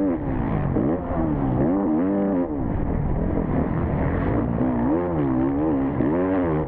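Four-stroke motocross bike engine revving hard and backing off over and over, its pitch rising and falling about once a second as the rider works the throttle through the track.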